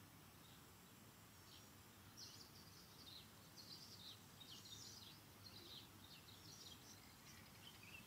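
Faint wild birds chirping: a quick, irregular run of short high notes beginning a second or two in, over a low steady hiss of ambient background.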